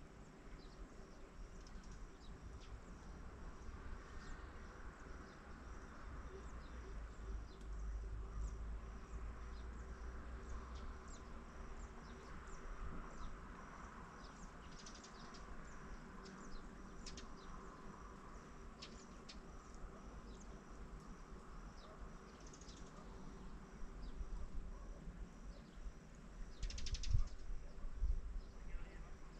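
Wetland ambience: many short bird chirps and calls scattered through, over a steady high insect trill and a low rumble. Near the end there is a louder burst.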